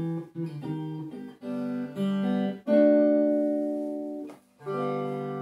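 Four-string cigar box guitar in open G tuning: a run of short notes and chords, then a chord about three seconds in that rings and is stopped, and a last chord near the end left ringing out.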